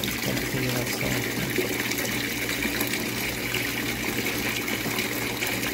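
Water running and splashing steadily in a backyard fish-pond tank, a continuous even rush.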